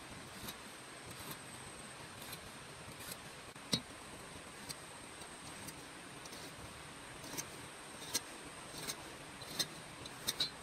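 Light, irregular ticks and taps of a pencil and a steel square on a wooden board as lines are marked off. One knock is louder about four seconds in, over a faint steady hiss.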